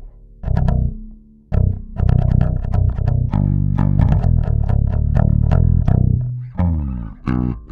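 Warwick Corvette Standard five-string bass with a bubinga body, German-made in 2003, played fingerstyle: a run of plucked notes with a brief pause about a second in.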